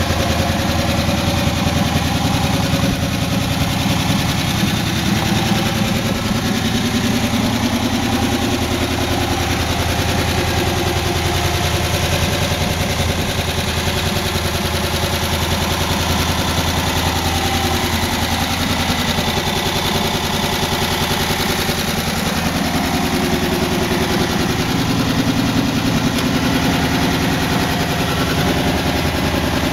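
1962 Ford Econoline pickup's inline-six engine idling steadily.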